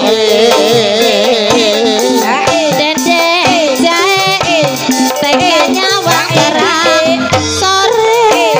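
Javanese gamelan music for an ebeg horse dance: hand drums beating a rhythm under a wavering, ornamented melody line, playing without a break.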